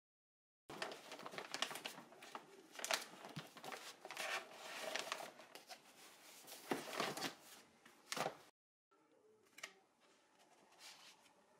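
Papers and folders rustling and crinkling as hands rummage through a plastic storage bin full of papers, with many sharp crackles. After a short break near 9 s, quieter rustling of sheets of drawing paper being leafed through.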